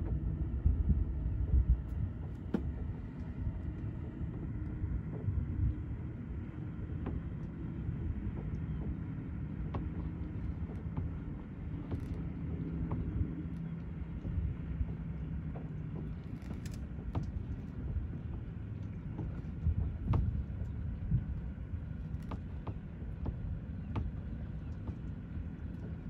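Boat engine running steadily with a low hum, and wind rumbling on the microphone.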